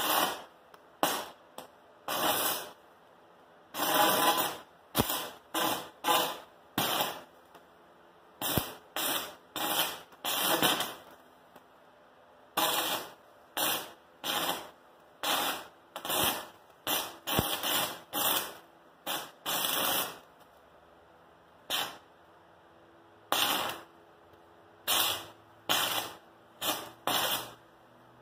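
Stick-welding arc from a 36-volt battery-powered arc welder crackling in dozens of short bursts, each under a second long, with pauses between them.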